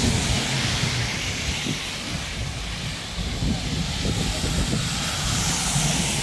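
Steady hiss of rain and car tyres on a wet street, with a low rumble underneath. The hiss swells near the end as a car passes close by.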